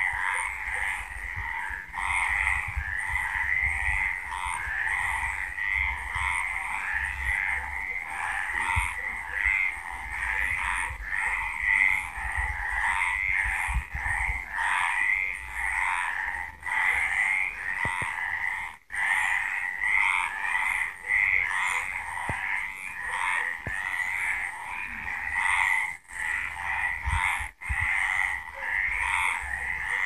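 A chorus of many frogs croaking, their rapid, overlapping calls repeating without pause.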